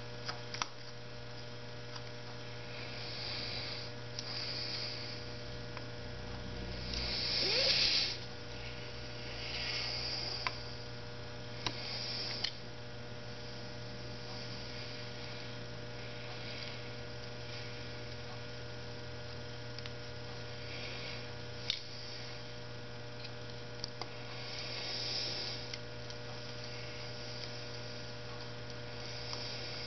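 Steady electrical mains hum, with a few soft scrapes and light sharp clicks from a screwdriver tightening screws on a motorcycle carburettor held in a vise. The loudest scrape comes about eight seconds in.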